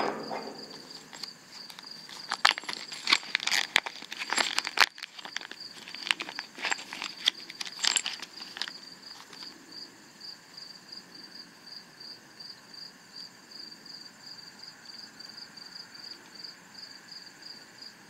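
Clear zip-lock plastic bag crinkling and rustling as a small metal dovetail plate is taken out of it, stopping after about nine seconds. Under it, a cricket chirps steadily in a high, evenly pulsing trill.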